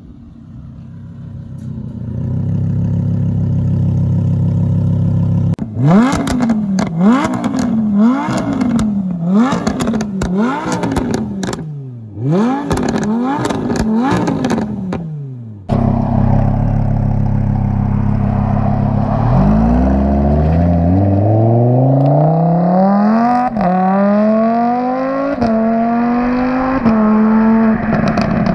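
Lamborghini Huracán's V10 idling, then revved in a rapid series of throttle blips, about one a second, each climbing and falling back. After a cut, the car accelerates hard, its pitch climbing in steps through several quick upshifts.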